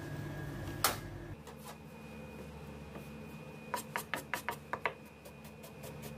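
Chef's knife slicing a white onion on a plastic cutting board: a single knock about a second in, then a quick run of about eight knife strikes on the board near the middle, over a faint steady hum.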